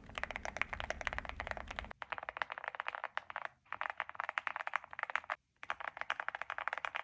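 Fast typing on an Epomaker HI75 aluminium mechanical keyboard with Drop MT3 profile keycaps: a rapid, continuous run of key clacks, the sound its owner calls creamy, with brief pauses about three and a half and five and a half seconds in.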